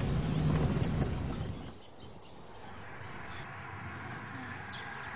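A low rumbling noise cuts off abruptly after about a second and a half, leaving quiet outdoor ambience with a few bird chirps near the end.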